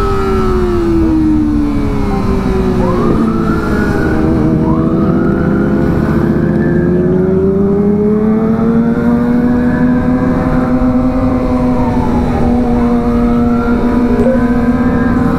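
Kawasaki ZX25R inline-four engines running on the move. The engine note drops over the first few seconds, then climbs slowly and holds. A higher, siren-like tone sweeps up and falls back about every two to three seconds.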